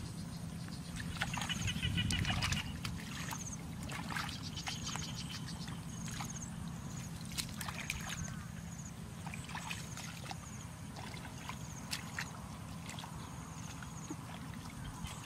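Muddy water sloshing and splashing as hands grope and legs wade through a shallow muddy ditch, louder in the first couple of seconds. Short high chirps repeat every second or so throughout.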